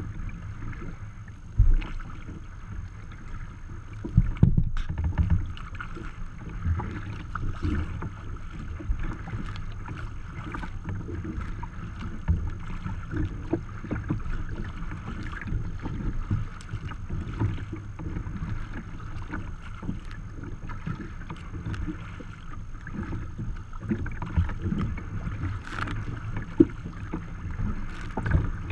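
Choppy water slapping and splashing irregularly against the hull of a sea kayak under way, with wind rumbling on the bow-mounted camera's microphone.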